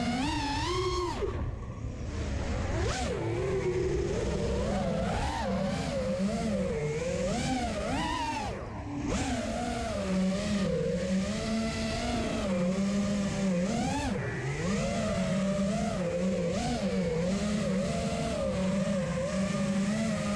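FPV quadcopter's brushless motors whining, their pitch swinging up and down with the throttle over a low rush of wind. The sound drops away briefly twice, once near the start and once just before the middle.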